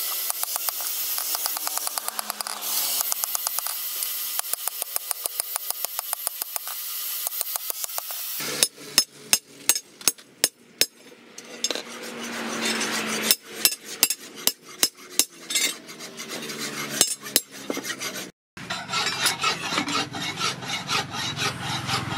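Hand work on a steel machete blade forged from a leaf spring. It opens with a fast, even run of rasping strokes, then turns to scattered sharp metal knocks. After a short break near the end come more rapid scraping strokes.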